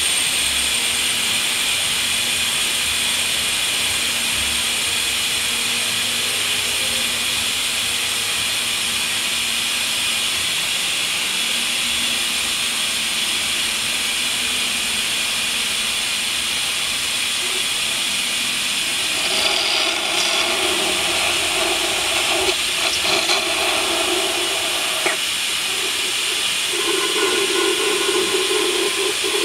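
Vacuum oil extractor hose sucking oil out of the engine's oil filter housing, a steady hiss. In the last third a lower tone joins in, coming and going.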